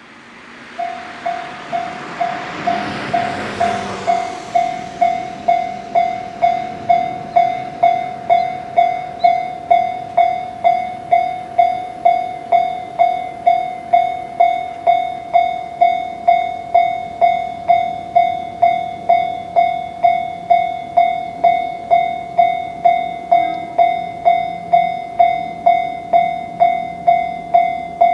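Japanese railway level-crossing warning bell ringing, a single ringing tone struck steadily a little under twice a second: the crossing is activated for an approaching train. A rush of hissing noise is heard in the first few seconds, fading out by about four seconds in.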